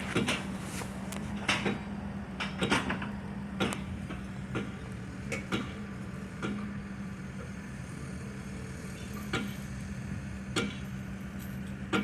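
Heavy construction machinery's diesel engine running with a steady hum, with irregular sharp metallic clanks and knocks, about one a second.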